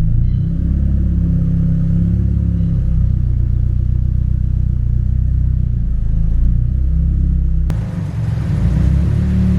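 A car engine running at low revs with a deep rumble, its pitch rising and falling a little as it is driven. About three-quarters of the way through, the sound changes abruptly.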